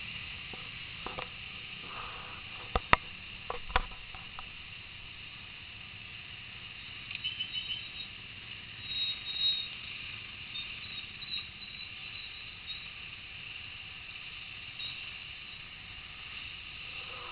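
Muffled, steady hiss of street traffic as picked up by a motorcycle-mounted camera, with two sharp knocks about three and four seconds in and a few faint high chirps around the middle.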